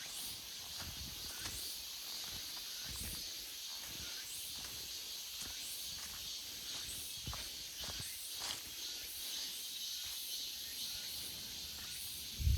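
Chorus of cicadas: a steady high buzz, with fainter, higher pulses repeating every second or so.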